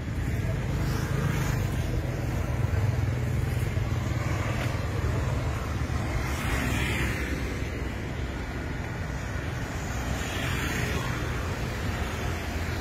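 Road traffic: a steady low engine rumble of passing cars and motorbikes, with a couple of brief swells as vehicles go by about halfway through and again near the end.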